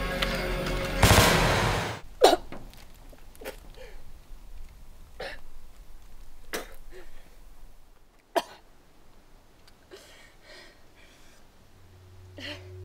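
A woman gasping and sobbing in short, ragged bursts spaced a second or so apart. It follows a loud burst of noise about a second in, after which the background music stops.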